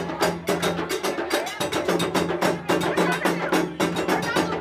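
Music with quick, busy percussion, about five strokes a second, over held low notes.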